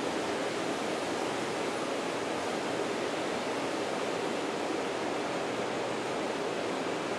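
A steady, unchanging rushing noise with no separate events in it.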